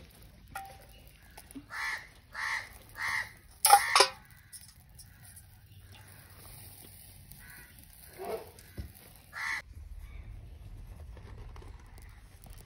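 A bird calling outdoors with harsh, cawing calls: three short calls about half a second apart, a louder cry near four seconds in, then two more calls later.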